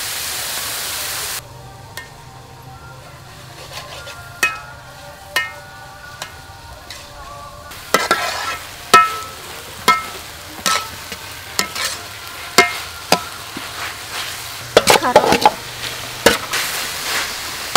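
Stir-frying in a metal wok: a steady sizzle for the first second or so, then a metal spatula scraping and clinking against the wok, each strike ringing briefly. The strikes come quicker and louder from about eight seconds in, with a burst of clatter near the end as shredded carrot is tipped in from a metal pot.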